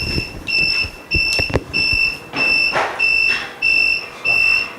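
Electronic buzzer of a mini OCA vacuum laminating machine beeping in a steady rhythm, high-pitched and about one and a half beeps a second, signalling that the laminating cycle is finished. A few sharp clicks sound about a second and a half in.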